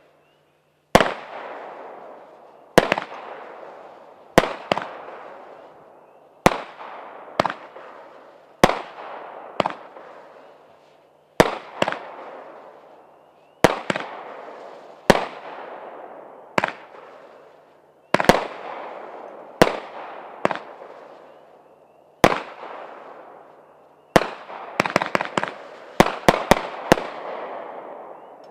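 Fantasy Fireworks 'Royal Flush' multi-shot firework going off shot after shot, about one sharp bang every one to two seconds, each fading out over a second or so. Near the end it fires a quick volley of several bangs as its finale.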